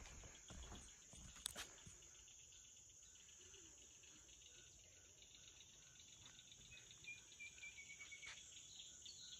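Faint insect chorus of crickets calling steadily, with an even pulsing rhythm through it. A single sharp click about a second and a half in.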